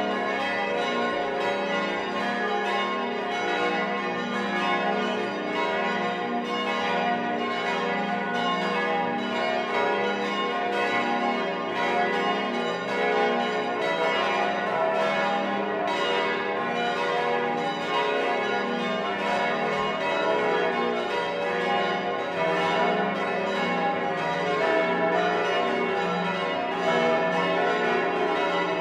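Several large bronze church bells (Pfundner, Vienna, 1960) swinging and ringing together in a full peal, heard close up from inside the bell chamber. Their strikes come every fraction of a second in an irregular, overlapping rhythm over a constant wash of ringing tones.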